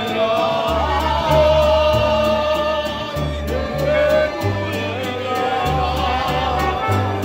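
Music with a steady bass line and a beat, and people singing along.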